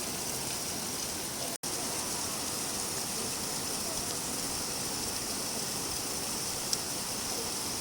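Steady rain falling, a dense even hiss of drops, with a momentary dropout about a second and a half in.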